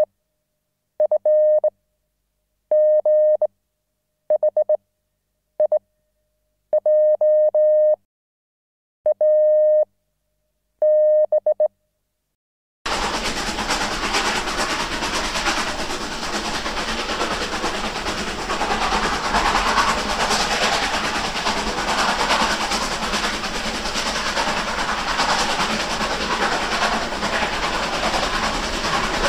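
Single-pitched electronic beeps, like a telephone signal, come in about seven short stuttering groups with dead silence between them. About halfway through they give way to a dense, steady noise that runs on continuously.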